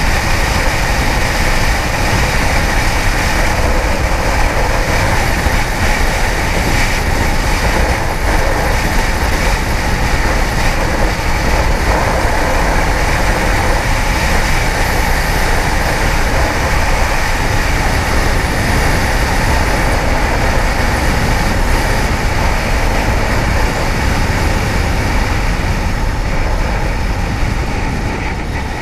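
Kawasaki ZX-10R sportbike being ridden: a loud, steady rush of wind over the helmet microphone mixed with the engine running, easing off a little near the end.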